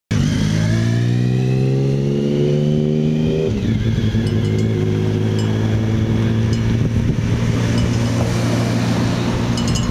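Motor vehicle engines passing close: a motorcycle and a car. One engine note rises gently in pitch for about three and a half seconds, breaks off, and a steadier engine note carries on.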